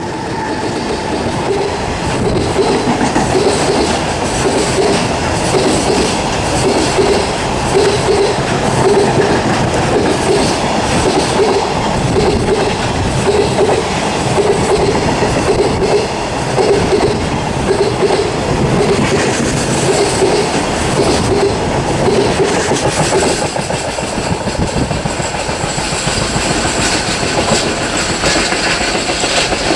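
Freight train of Koki container flatcars passing close by: a steady loud rumble with the regular clickety-clack of wheelsets over rail joints. The clacking fades about two-thirds of the way through, leaving the rolling rumble and a high hiss.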